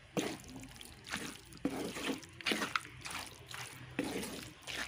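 A spatula stirring and scraping thick, wet duck curry in a pot: short squelching strokes about twice a second.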